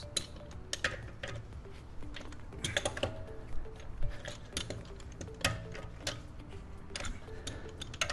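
Lug nuts being tightened with a telescoping lug wrench and socket: irregular metallic clicks and clinks as the socket works on the nuts, the sharpest about four seconds in. Faint background music plays underneath.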